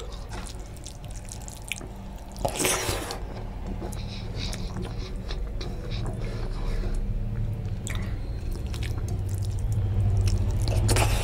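Close-miked eating by hand: wet clicks and squelches of fingers mixing rice with oily curry on a plate, and mouth sounds of chewing, over a steady low hum. A louder rustling burst comes about two and a half seconds in.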